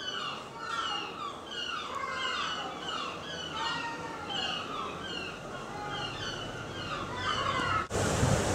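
A flock of gulls calling: many short, downward-slurred cries overlapping one another. Near the end the calls cut off suddenly, and wind on the microphone and waves breaking on the shore take over.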